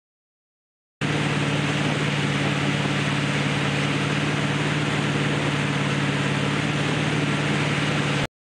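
Tow boat's engine running steadily at speed, with the rush of water and wake around the hull. The sound cuts in abruptly about a second in and cuts off suddenly near the end.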